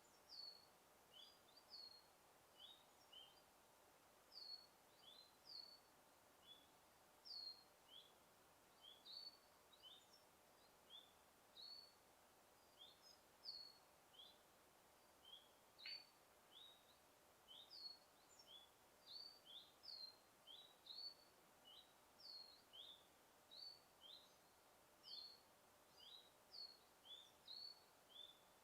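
Forest birdsong: a continuous series of short, high chirps, about two a second, each a quick falling or hooked note, over a faint steady hiss. One chirp about halfway through sweeps down much lower than the rest.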